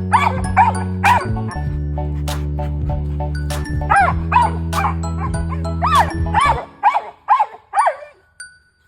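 Dog barking in short repeated barks over background music with a steady low bass. The music stops about two-thirds of the way in, while the barks go on, closer together, and then stop just before the end.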